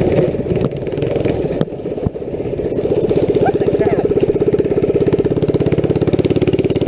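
Small engine of a ride-on vehicle running while it is driven. It is uneven for the first couple of seconds, then settles into a steady run with rapid, even firing pulses.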